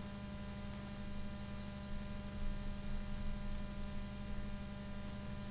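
Steady electrical mains hum with background hiss from the recording setup, with a strong low tone and a ladder of fainter, evenly spaced overtones.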